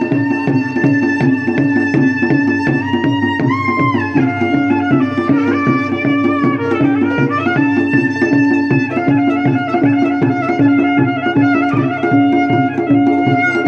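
Betawi traditional music accompanying ondel-ondel giant puppets: a reedy lead melody with held notes and pitch slides over a steady drum beat.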